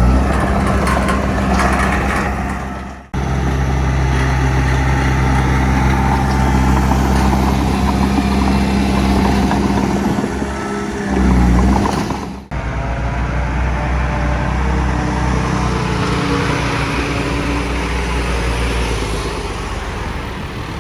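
Heavy construction machine's diesel engine running steadily with a deep low hum. The sound breaks off abruptly twice and picks up again each time.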